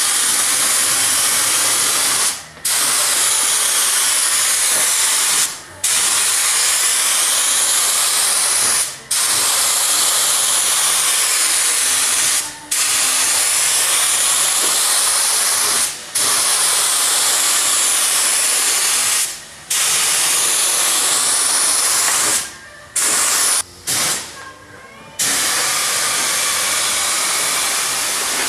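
Gravity-feed paint spray gun hissing steadily with compressed air as it sprays clear coat. The trigger is let off for a moment about every three seconds between passes, with a few quick stop-start bursts near the end.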